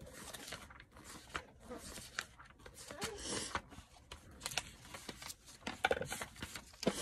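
Rustling and scattered light clicks from small makeup items, such as a lip liner pencil, being handled close to the microphone.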